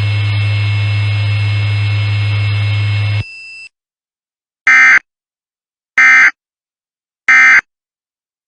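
A steady low hum with faint thin high tones cuts off about three seconds in. Then come three short, identical warbling digital bursts about a second apart: the Emergency Alert System end-of-message (SAME "NNNN") data code that closes an EAS test broadcast.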